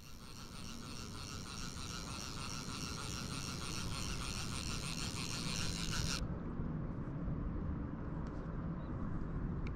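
Fly reel's click-and-pawl drag buzzing as a hooked fish pulls line off. It stops suddenly about six seconds in, and a few single clicks follow over a steady low rumble.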